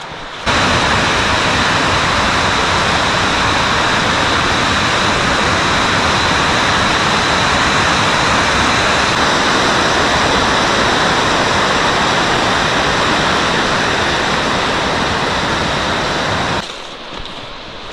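Loud, steady rush of whitewater in a mountain creek, like a cascade or rapid. It starts abruptly just after the start and cuts off abruptly near the end.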